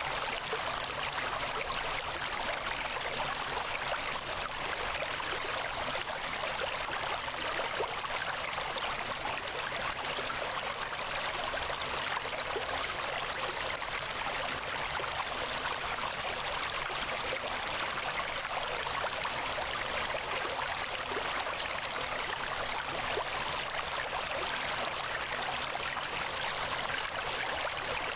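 Steady, even rushing noise like running water, unchanging throughout and with no music or voice over it.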